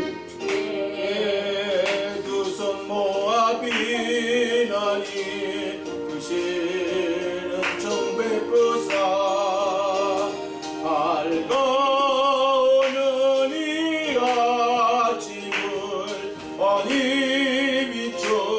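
A Korean gospel song: a male voice singing with vibrato over keyboard accompaniment, in phrases with short pauses between them.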